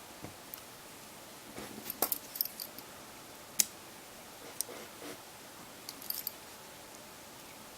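Faint, scattered small clicks and taps of a smartphone's internal parts being handled and pressed together during reassembly, with a sharper click about three and a half seconds in.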